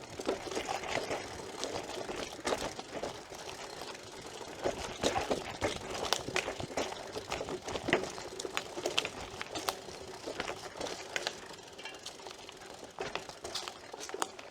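BMX bike with no suspension rolling over a rough trail, its frame and chain rattling with irregular clicks and knocks.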